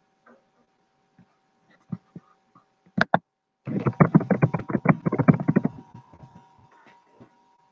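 Scattered knocks and clicks: a couple of soft thuds, two sharp clicks about three seconds in, then a quick run of tapping for about two seconds, over a faint steady electrical whine.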